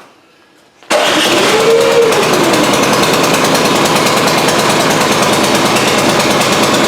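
A snow blower's gasoline engine fires up suddenly about a second in and keeps running steadily, with a brief rising and falling whine just after it catches.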